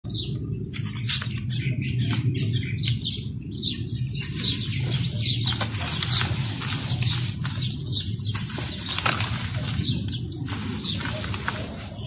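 Dusty charcoal briquettes being crumbled and crushed by hand: a dense, irregular run of dry, crisp crunching and crackling as the lumps break apart into powder.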